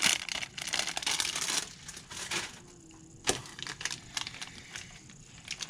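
Plastic packaging crinkling and rustling as it is handled, then quieter scattered clicks and taps, with one sharper knock about three seconds in.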